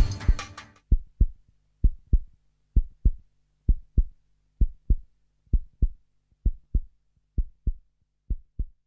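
Heartbeat sound effect: slow lub-dub double thumps, about one pair a second, over a faint low hum, growing a little fainter toward the end. The last of a music track dies away in the first second.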